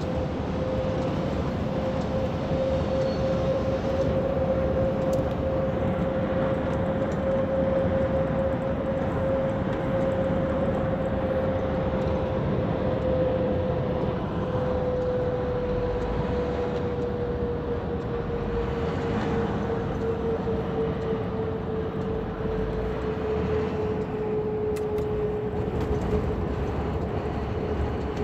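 Truck on the move with a steady road drone and a single hum that slowly drops in pitch: the drive-axle noise that could be a humming wheel bearing or the drive tyres.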